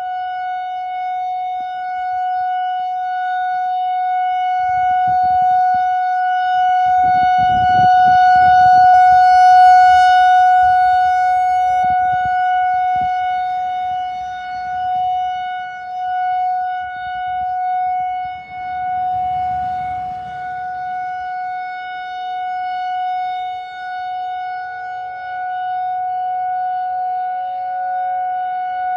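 Whelen WPS 4004 electronic outdoor warning siren sounding a steady alert tone that holds one pitch without rising or falling. It grows louder to a peak about a third of the way in and then eases back.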